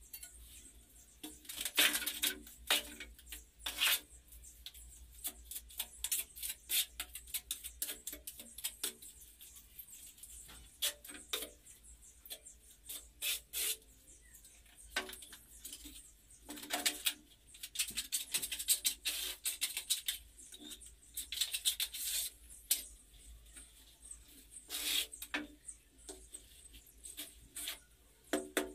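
Irregular scraping, tapping and clicking of ceramic wall tiles being worked into mortar by hand.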